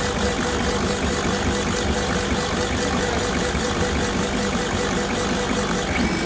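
CNC laser engraving and cutting machine running on plastic: a steady mechanical hum with a few constant tones and no pauses.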